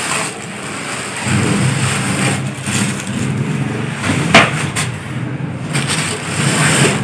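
Cardboard box and plastic-wrapped speakers being handled, rustling, with a sharp knock about four seconds in. A steady low hum sets in about a second in and runs beneath the handling.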